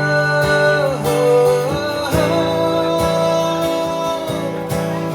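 Acoustic guitar strummed in a steady rhythm, with long held notes over it, in a live song performance between sung lines.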